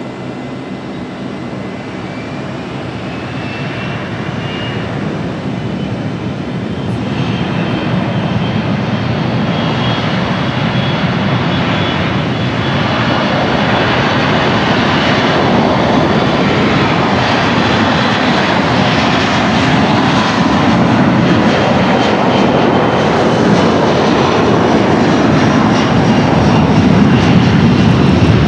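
Boeing 737-400's CFM56 turbofan engines at takeoff thrust during the takeoff roll: a steady jet roar that grows louder as the airliner accelerates down the runway, with a faint high whine above it.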